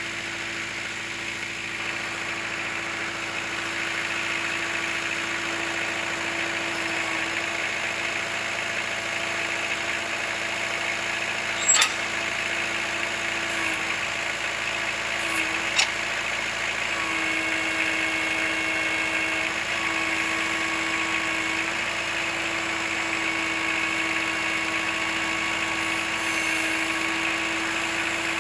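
Kubota L4600 tractor's diesel engine running steadily while it works the BH92 backhoe, with two sharp clanks about four seconds apart near the middle.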